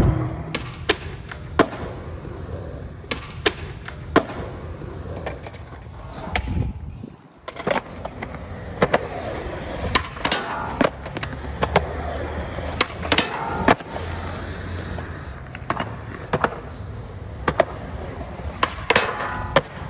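Skateboard wheels rolling on concrete, broken by many sharp pops and clacks from tail pops and board landings, with the board scraping along a metal handrail during rail tricks.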